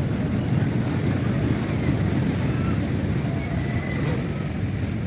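Steady low rumbling fairground din, with faint distant voices and squeals over it.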